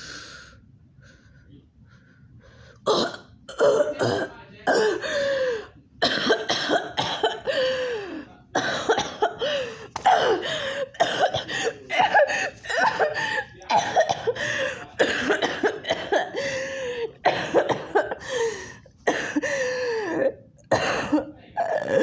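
A girl's voice coughing over and over in an acted coughing fit, a long run of short coughs and throat-clearing that starts about three seconds in.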